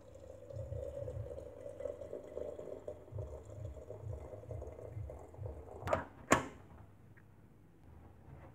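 Water pouring from an enamel kettle into a porcelain teapot, a steady filling sound. About six seconds in it stops, and two sharp clinks follow as the porcelain lid is set on the teapot.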